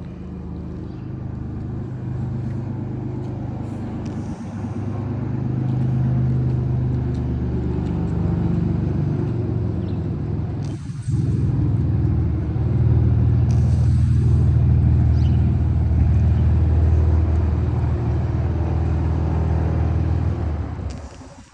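Cessna 210J's six-cylinder piston engine and propeller running steadily, with a deep, even drone. It gets louder twice, about a quarter of the way in and again around the middle, and there are two brief hissy breaks near the middle.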